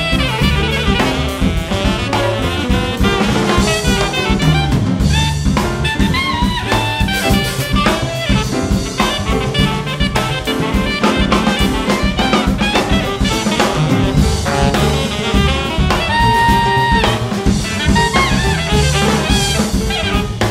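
Jazz quartet playing: an alto saxophone over piano, bass and a drum kit, with a long held note about sixteen seconds in.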